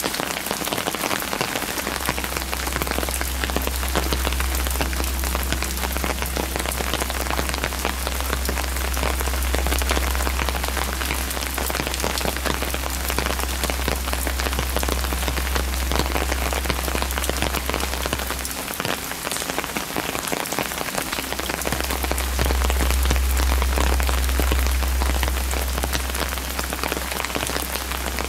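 Steady rain falling and spattering on wet stone steps and paving, an even hiss of many drops. A low rumble runs underneath and drops out for a few seconds about two-thirds of the way through.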